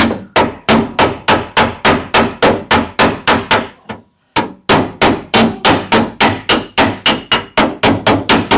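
Rapid, even blows of a flat-faced panel hammer on the sheet-steel rear panel of a classic Lancia coupe, about five a second, with a short break about four seconds in. The panel is being hammered out while a pulling jig holds it under tension, so that it does not spring back.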